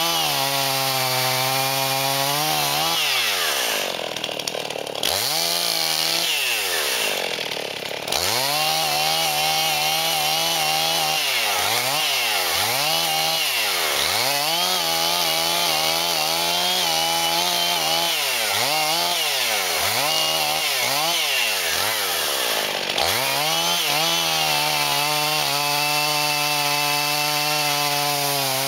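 Husqvarna chainsaw cutting wood: the two-stroke engine runs at high revs and sags in pitch, then recovers, every second or two as the chain loads up. It drops back briefly twice in the first eight seconds.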